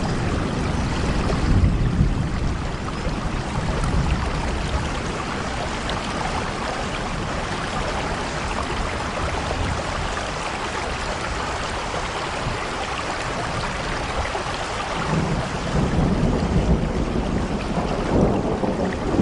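Heavy rain coming down in a dense, steady hiss, with low rumbling swells near the start and again in the last few seconds.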